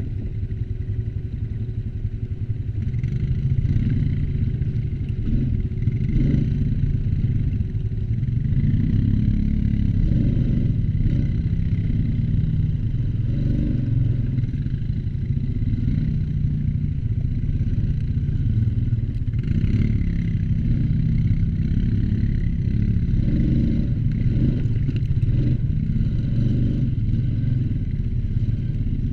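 ATV engine running under way, its note rising and falling with the throttle, a little louder from about three seconds in.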